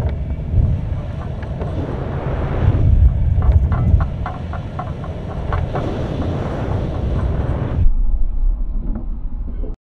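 Steady wind rumble and buffeting on the microphone of a GoPro carried by a high-altitude balloon payload, with scattered small clicks and knocks from the swinging payload. Near the end the sound turns duller and lower, then cuts off suddenly.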